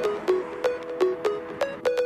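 Electronic background music: a steady beat of sharp hits, about three a second, over short synth notes, with the bass dropped out.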